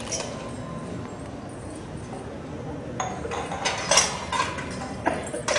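Metal tumblers and plates clinking and knocking as they are handled and set on the floor. About three seconds in, a handful of sharp clinks with short ringing begins.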